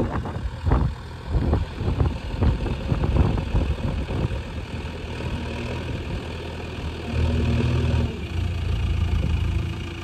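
JCB 3DX backhoe loader's diesel engine running as the machine works, with several clunks in the first few seconds and a short rise in engine load about seven seconds in.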